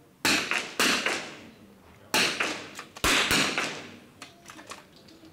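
Four .22 rimfire target rifle shots in an indoor range hall, each a sharp crack with a trailing echo. The first two are about half a second apart and the next two follow about a second apart; a few fainter clicks come near the end.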